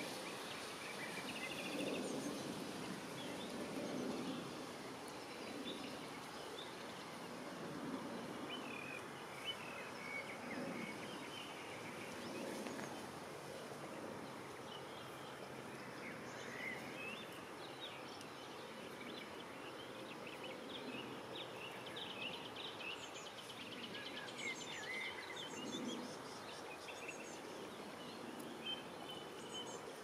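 River ambience: a steady wash of flowing water with soft low swells of water sound every few seconds, and small birds chirping and singing in the bankside bushes, busiest in the second half.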